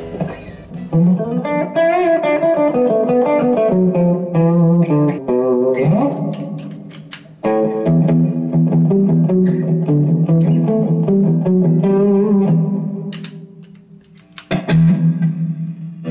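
Electric guitar played through a Zoom G5 multi-effects pedal and a Line 6 combo amp: a run of notes and chords with a rising slide about six seconds in. The playing trails off briefly near the end, then a strum comes back in.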